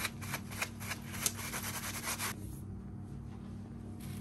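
A comb rubbed quickly back and forth with a tissue dusted in talcum powder, about five strokes a second, stopping a little over two seconds in. The powder is wiping the oily buildup off the comb.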